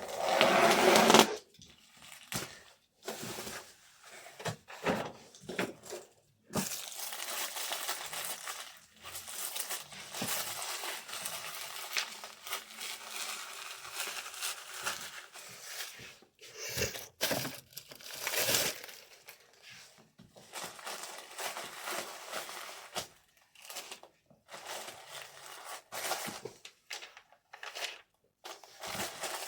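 Packaging being handled while an order is packed: repeated crinkling and rustling of wrapping material, with a loud rustle right at the start and a long stretch of continuous crinkling in the middle.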